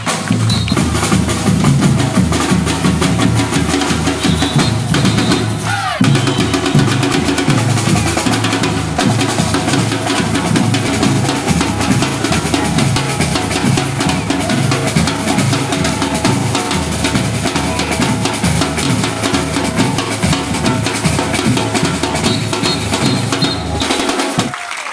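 Music with a drum kit driving a steady beat of bass drum and snare, with a short break about six seconds in, stopping just before the end.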